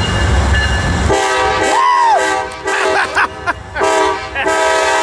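Amtrak passenger locomotive's multi-note air horn sounding several loud blasts as the train pulls into the station, the first a long blast starting about a second in, over the low rumble of the approaching train.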